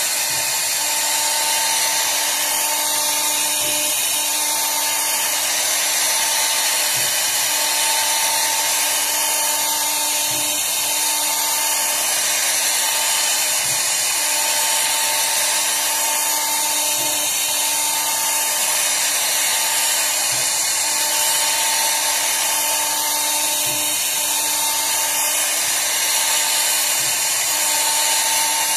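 CNC router spindle running steadily, its bit cutting a carved floral relief into an MDF panel. A steady whine runs throughout, with a higher tone that drops in and out every second or two as the bit moves along its path.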